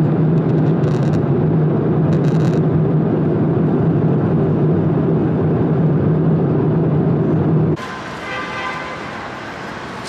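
Airliner cabin noise in cruise: the steady rush of the jet engines and airflow with a low, even hum. About three-quarters of the way through it cuts abruptly to quieter outdoor traffic ambience.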